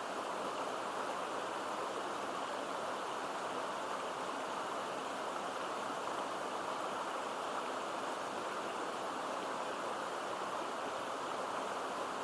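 Stream water rushing over a waterfall into a pool, a steady, even rush with no breaks.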